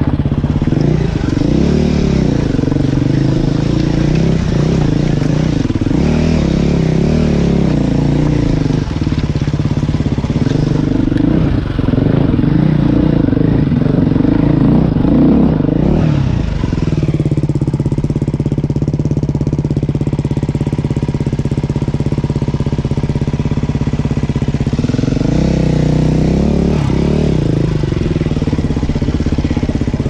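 Off-road vehicle engine running under load on a rough trail, its pitch rising and falling repeatedly with the throttle. It holds a steadier pitch for several seconds past the middle, then revs up and down again near the end.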